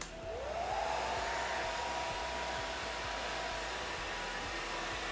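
Handheld hair dryer switched on with a click, its nozzle inside the sleeve of a satin diffuser cap. Its motor whine rises over about the first second, then runs steady over the rush of blowing air.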